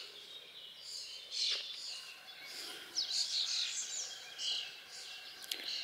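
Songbirds singing, a run of short chirping phrases one after another, over faint steady outdoor background noise.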